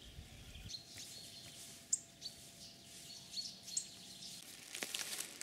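Small forest birds calling faintly: a few short, high chirps scattered over quiet background.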